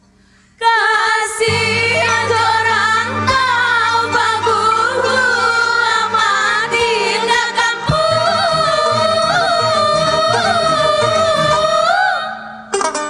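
A group of women singing a flowing, pitch-bending melody, entering about half a second in, with low sustained instrumental tones underneath from about a second and a half in. The singing breaks off shortly before the end.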